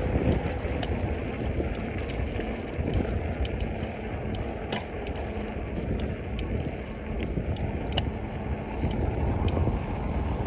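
Riding a bicycle: wind buffeting the microphone over tyre noise, with scattered light clicks and rattles, two sharper ones about five and eight seconds in.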